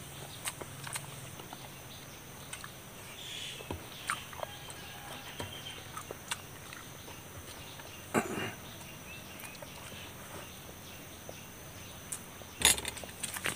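Close-up eating sounds: scattered small clicks and crackles of fingers tearing at a roasted chicken and chewing, with a louder crunch about eight seconds in and a short cluster of crunches near the end.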